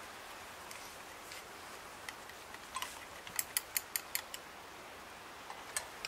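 Tin camp cookware being handled: a run of small, sharp metallic clicks and taps, about five a second, over a steady faint hiss.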